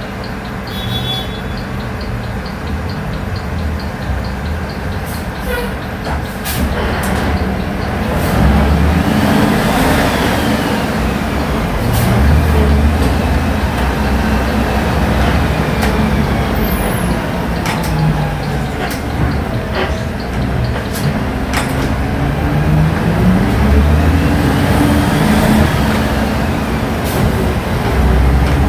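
City bus's CNG engine on a Volksbus 17-230 OD chassis pulling and accelerating, its low pitch climbing and dropping back several times as it goes up through the gears, louder from about eight seconds in. A few sharp clicks and knocks are heard along the way.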